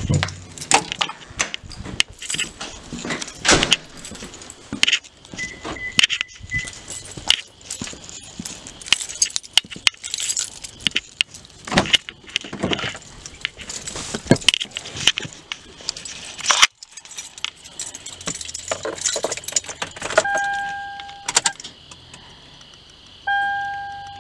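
Keys jangling and gear clattering in short, irregular rattles and clicks. About twenty seconds in, a Toyota's dashboard warning chime sounds as a steady beep, then near the end it repeats about once a second.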